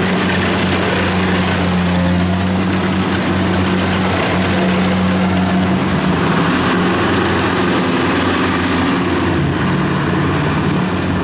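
Diesel engine of a Kubota DC-70 rice combine harvester running steadily at working speed. About six seconds in the engine note changes to that of a tracked rice-hauling carrier.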